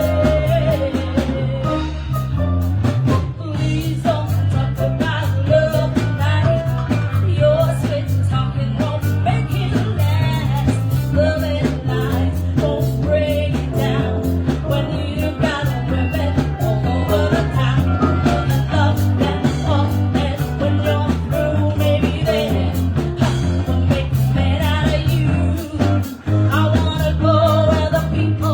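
Live band music with a singer, guitar and a steady bass line.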